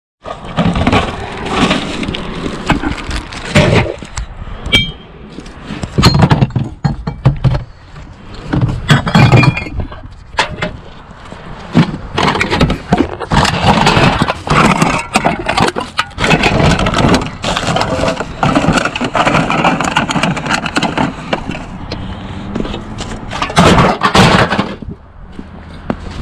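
Hands rummaging through a curbside recycling bin: plastic bags and bottles crinkling and rustling, with many sharp knocks and clinks of containers being moved about. It quiets near the end.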